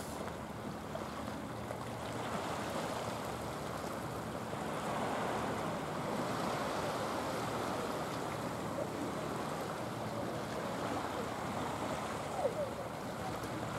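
Small waves of a calm sea washing steadily against a pebbly rock shore.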